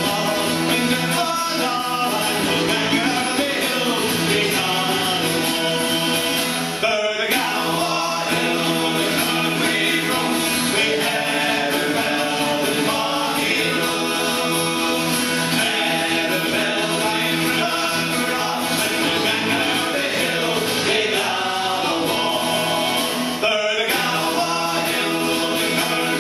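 Scottish folk song: men's voices singing together in harmony over a strummed acoustic guitar and a second strummed string instrument. It breaks off briefly between lines about seven seconds in and again near the end.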